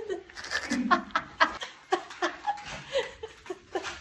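A woman laughing: a fast string of short laughs, three to four a second.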